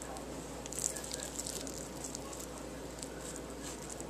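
Sharp knife cutting rainbow trout meat off the skin: faint, wet slicing and scraping with small soft clicks, a little louder about a second in.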